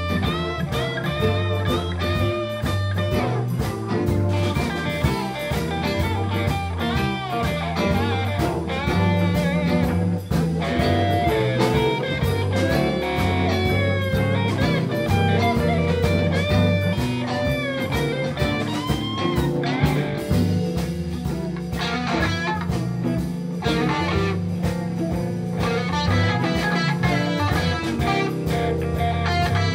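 Live blues band (electric guitars, bass guitar, drum kit and keyboard) playing a blues. A lead line with bent notes sounds over a steady bass and drum groove.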